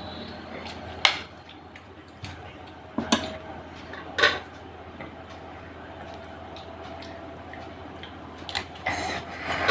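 Eating at a plate of chicken curry with rice: scattered sharp clicks and clinks of dish and cutlery, a few spaced out at first and a quicker cluster near the end.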